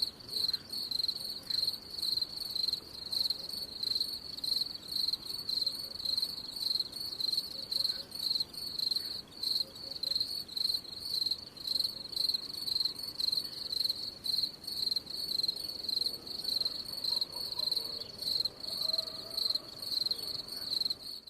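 A cricket chirping steadily in a high, even trill, about two chirps a second, cutting off suddenly at the end.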